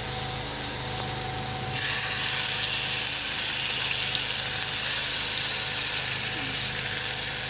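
Marinated chicken leg pieces sizzling in a lightly oiled kadhai, a steady hiss that grows louder about two seconds in, over a faint steady hum.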